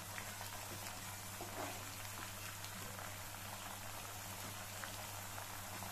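Cornflour-coated sweet corn kernels deep-frying in hot oil in a kadai, a steady, faint sizzle with a few small pops. The kernels are nearly done frying.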